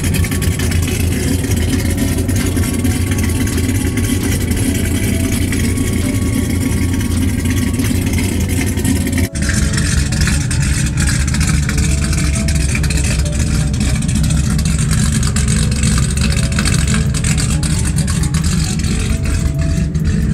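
Supercharged V8 of a Ford F-150 SVT Lightning pickup running steadily with a loud, deep exhaust rumble, with a faint music melody underneath. The sound drops out for an instant about nine seconds in, then carries on.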